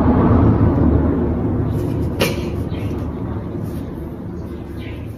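Low rumble of a passing motor vehicle's engine that slowly fades away over the first few seconds, with a sharp click about two seconds in.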